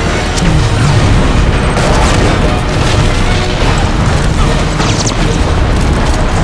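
Video game battle audio: loud, continuous rumbling booms and blasts mixed with music.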